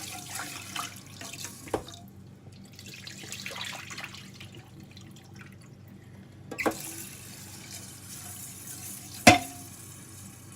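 Rice being washed in a bowl: water running and sloshing as the grains are rinsed until the water runs clear, quieter for a few seconds in the middle, with three sharp knocks against the bowl, the loudest near the end.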